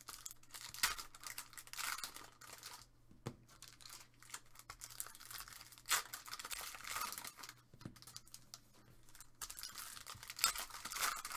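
A foil trading-card pack wrapper being torn open and crinkled by hand, in irregular rips and crackles.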